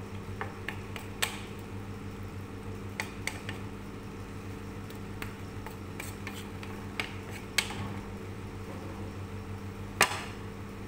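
Wooden spatula clicking and scraping against a nonstick frying pan as chicken simmering in a little water is stirred, with scattered knocks, the sharpest near the end. A steady low hum runs underneath.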